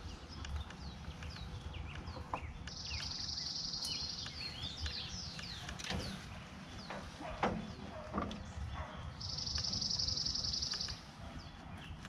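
Wild songbirds singing: repeated short high chirps, with two long high trills, about three seconds in and again near ten seconds.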